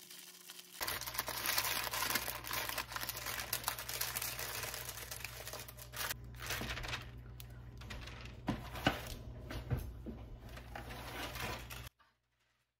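Parchment paper crinkling as it is folded and crimped shut around a salmon fillet to seal a papillote, with a few sharper taps in the second half. The sound cuts off suddenly about a second before the end.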